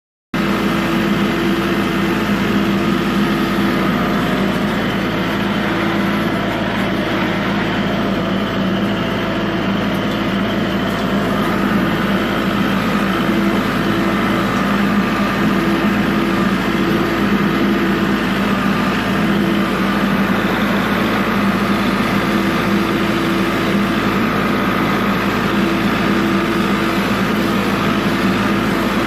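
Tractor engine running steadily while pulling a hay baler in the field.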